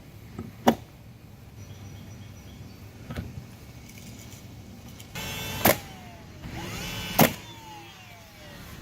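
A handheld electric power tool's motor running in two short bursts, whirring up and winding down after each, with sharp knocks at the end of each burst and a few lighter knocks before.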